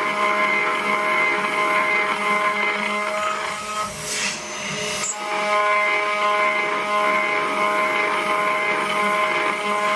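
Spindle of a DIY CNC router milling a metal part with an end mill: a steady high whine of several tones over a cutting hiss. The whine breaks off for about a second around four seconds in, with a short swish, then picks up again.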